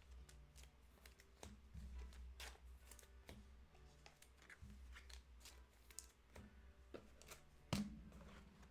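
Faint clicks and slides of trading cards being handled and sorted by hand, with a louder tap near the end.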